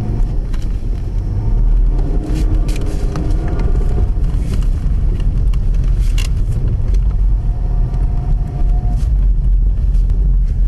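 Audi A4's engine running hard, its revs rising and falling, as the car drives and slides on a snow-covered track, heard from inside the cabin over a heavy low rumble. Scattered sharp knocks and clicks come through now and then.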